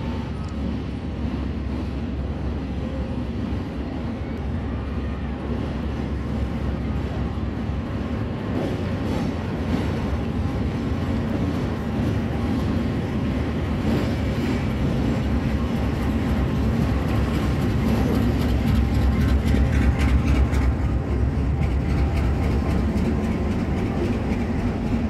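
Diesel-electric RGE 20 locomotive running as it approaches and passes beneath, its engine hum growing louder, peaking near the end, as the coaches behind it roll by with some clicking over the rails.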